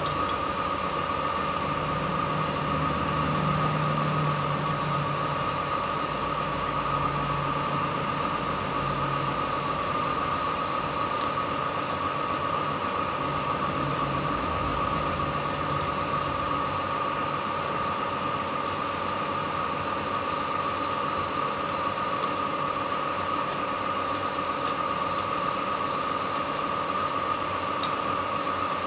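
A steady machine hum with a constant high whine running unchanged throughout. A lower drone swells for several seconds, from about two seconds in until about ten seconds in.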